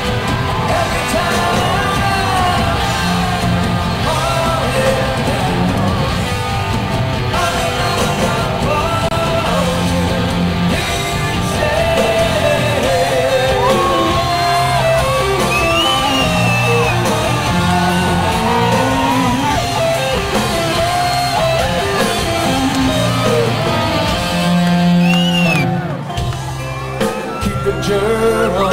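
A hard rock band playing live: a male lead singer over electric guitar, bass and drums, heard as a concert recording from the audience. The band drops back briefly near the end.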